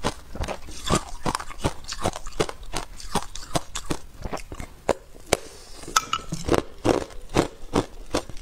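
Hard clear ice being bitten and crunched between the teeth, close to a clip-on microphone: a quick run of sharp cracks and crunches, a few a second, thinning out briefly about halfway through.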